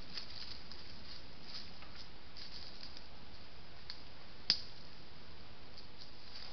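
Steady hiss of a trail camera's microphone, with faint scattered crackles of a roe deer's footsteps in dry leaf litter as it walks off. There is one sharp click about four and a half seconds in.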